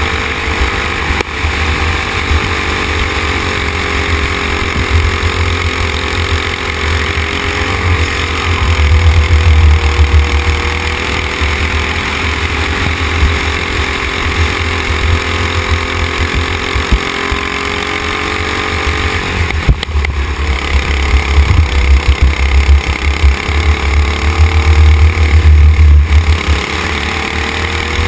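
Racing kart engine held at high revs on track, its pitch falling sharply about twenty seconds in as the driver lifts and then climbing again. Heavy wind buffeting on the microphone comes and goes over it.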